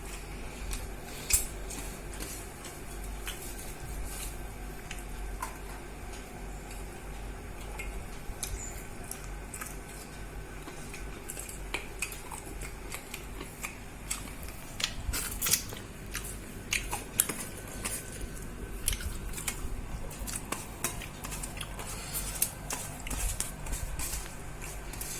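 Scattered clinks and scrapes of dishes and cutlery as someone eats a meal, coming more often in the second half, over a steady low hum.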